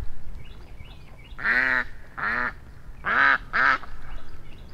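Ducks and geese (waterfowl) calling: four loud calls, the last two close together.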